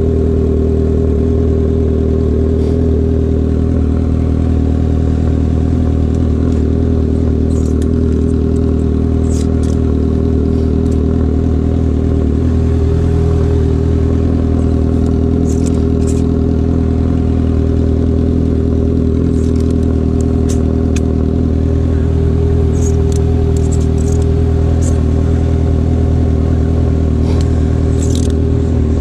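Suzuki Bandit 650N's inline-four engine idling steadily, with no revving. A few faint light clicks are heard here and there.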